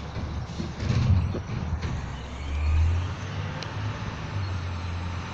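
Garbage truck's diesel engine running down the street, a low steady drone that swells about a second in and again around the middle.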